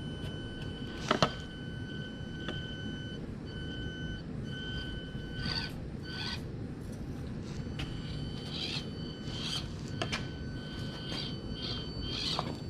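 Axial SCX24 Deadbolt micro rock crawler driving: the electric drive motor gives a thin, steady high whine that starts and stops several times as the throttle is worked, with occasional sharp knocks from the truck crawling over obstacles, the loudest about a second in.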